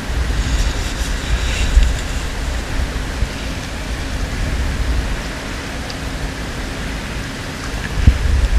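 Wind buffeting the microphone: a steady rough rush with a deep, gusting rumble and a couple of brief louder gusts.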